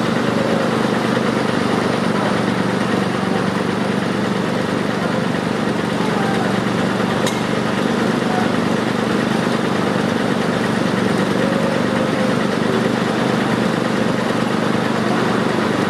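Diesel engine of heavy construction machinery running steadily at idle: a constant low hum, with one brief sharp click about seven seconds in.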